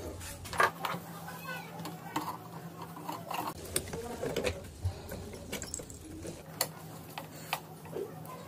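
Scattered light clicks, taps and rattles of wiring and a screwdriver as a motorcycle's finned aluminium rectifier-regulator is set in place and screwed to its mount, over a faint steady hum.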